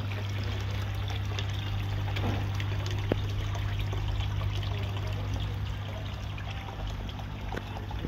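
Water trickling and splashing steadily in a goldfish pond from its aeration and filter outlets, over a steady low hum from the pond's pumps and pressure filters. A single light tick about three seconds in.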